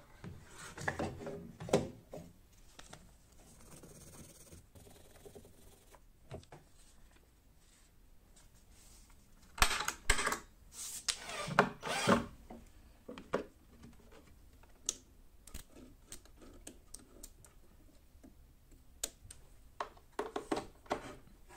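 Hand-handling noises on a plywood router-table frame: irregular knocks, taps and rubbing of wood and plastic parts, with a louder cluster of knocks about ten to twelve seconds in and a few sharper clicks near the end as the router's plug is pushed into the power strip.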